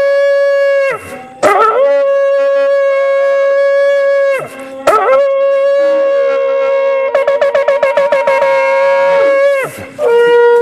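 Two shofars sounding, a small horn and a long spiral horn, in long steady blasts that break off twice. Near the end of the third blast comes a run of quick pulses, about six a second, and another blast starts just before the end.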